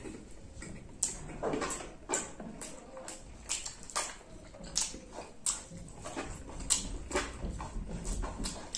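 Close-up eating sounds of two people eating spicy chicken, rice and beans with their fingers: wet chewing and lip smacks, many short, sharp smacks at an irregular pace.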